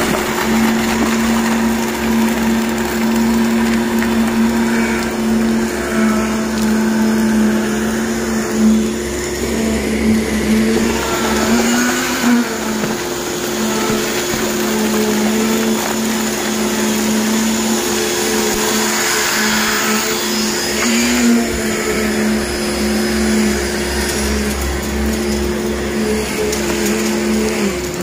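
Concrete pump running steadily as concrete is pushed out through its delivery hose: a constant machine drone with a steady hum, its pitch rising briefly twice.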